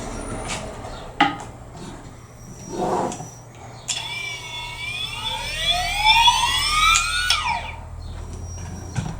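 Xhorse Dolphin XP-007 key-cutting machine's motor spinning up with a whine that rises steadily in pitch for about three seconds, then winds down quickly, after a few clicks from handling the machine.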